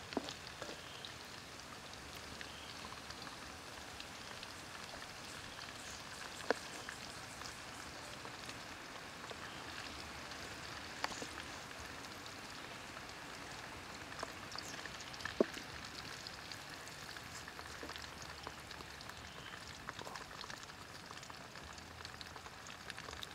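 Quails deep-frying in hot oil in a wok: a steady crackling sizzle, with a few sharp knocks of the spatula against the wok and strainer as the pieces are lifted out.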